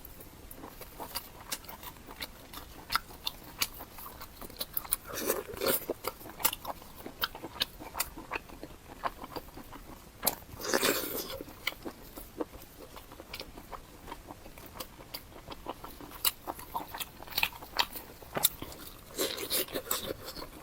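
A person biting and chewing pig's tongue close to the microphone: many wet mouth clicks and smacks, with louder bites about five and eleven seconds in.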